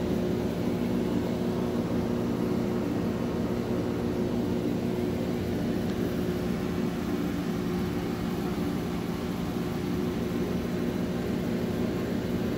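Steady mechanical hum: several low tones held at a constant pitch over an even hiss, unchanging throughout.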